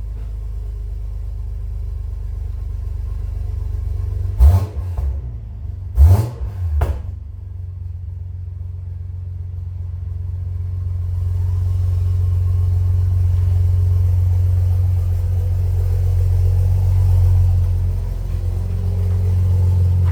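Car engine running with a steady low rumble, broken by sharp loud bangs about four and a half and six seconds in; the rumble grows louder through the second half.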